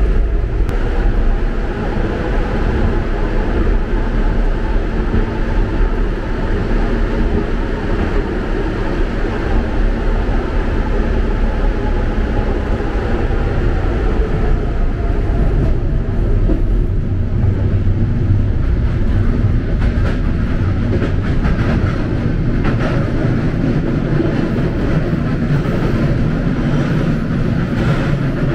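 Budapest M1 Millennium Underground metro car running between stations: a steady rumble of wheels on rails with a faint motor whine.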